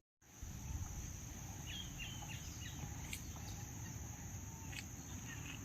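Faint outdoor ambience: insects droning steadily at a high pitch, with a quick run of bird chirps about two seconds in and a few single chirps later.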